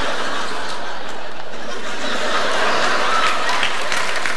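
Studio audience laughing steadily at a comedy bit.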